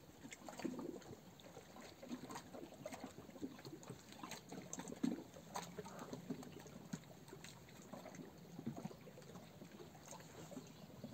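Sea water lapping gently at a stone quay: faint, irregular small splashes and trickles.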